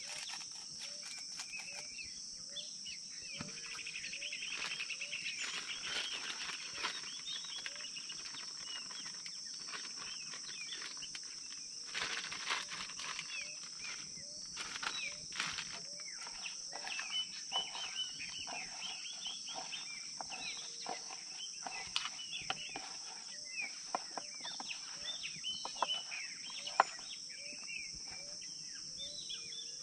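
A steady high-pitched chorus of insects with many birds chirping and calling over it. Small clicks, knocks and a plastic rustle from utensils and a bag being handled break in now and then, the sharpest click near the end.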